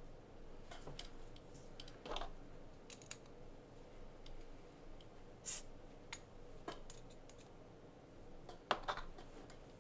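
Faint, irregular small clicks and taps from handling small RC car steering parts: turnbuckles being threaded into plastic rod ends by hand and adjusted to length.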